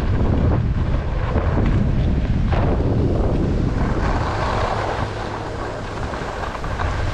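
Wind noise on the microphone while skiing downhill, over the steady hiss and scrape of skis sliding on packed, groomed snow.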